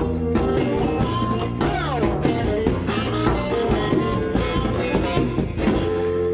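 Live rock and roll band playing an instrumental passage: guitar over bass and drums, with a note sliding down in pitch about two seconds in.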